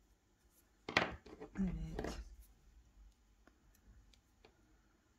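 A single sharp snip of scissors, about a second in, cutting off the woven-in end of the crochet cotton thread, followed by faint handling ticks.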